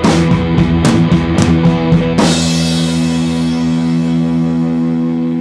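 Rock music with guitar and drums: the beat stops about two seconds in on a final hit, and a last chord is held and rings on.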